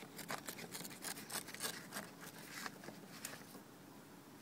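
A run of small clicks, scrapes and rubs as hands pull a plastic trim strip away from the fabric soft top of a Smart Fortwo 450 cabrio; the clicking thins out after about three and a half seconds.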